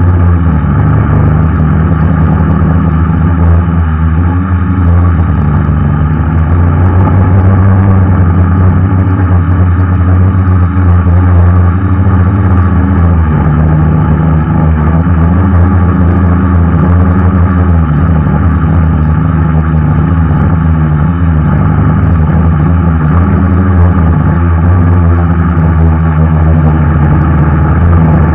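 A 550-size quadcopter's motors and propellers running in flight, heard close up from a camera mounted on the frame; the pitch of the tones keeps drifting up and down.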